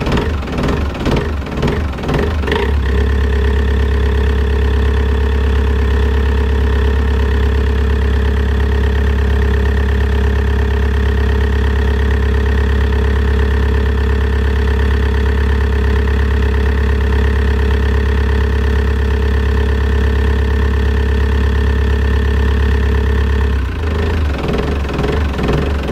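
Sailing yacht's inboard marine diesel engine running in its compartment, heard close up. It pulses unevenly at first, settles into a steadier, faster run about three seconds in, and drops back to the pulsing idle near the end.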